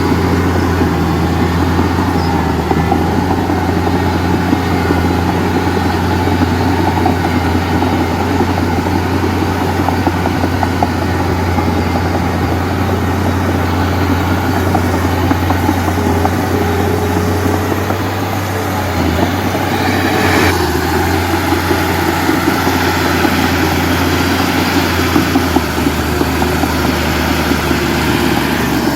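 Heavy diesel engine running steadily with a deep drone and a dense rattle. The level dips briefly about 18 seconds in, and the tone shifts about 20 seconds in.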